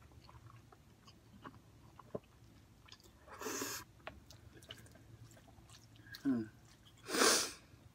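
Soft close-up eating sounds: a person chewing spicy noodles, with small wet mouth clicks and two short breathy rushes of air, one about three and a half seconds in and one near the end.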